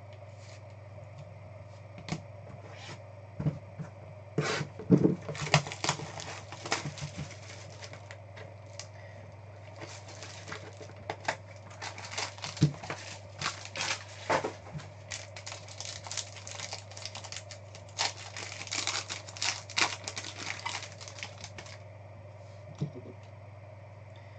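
Trading cards, their clear plastic toploader holders and a box or pack being handled and opened on a tabletop: irregular clicks, taps and crinkling rustles, densest from about two seconds in until near the end, over a steady low hum.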